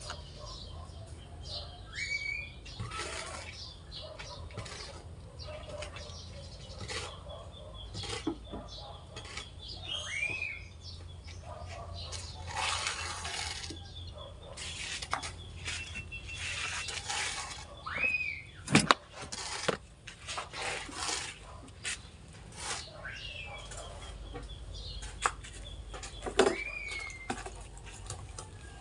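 Metal shovel scraping and scooping sand on a hard ground, in repeated strokes with a sharp knock about two-thirds of the way through. Several short rising-and-falling bird calls recur every few seconds.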